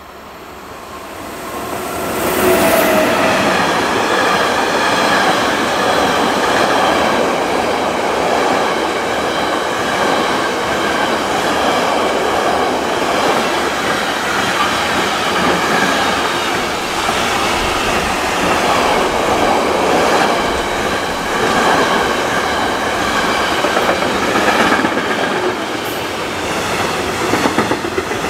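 Freight train hauled by a Class 186 electric locomotive passing close by: the noise swells quickly as the locomotive goes by about two seconds in, then the long string of trailer-carrying wagons runs past steadily, wheels clattering on the rails with a few sharper clicks.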